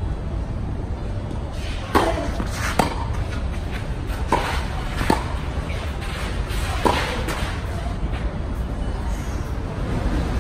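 Tennis rally: five sharp pops of tennis balls being struck by rackets and bouncing on the court, spread over about five seconds from two seconds in, over a steady low rumble.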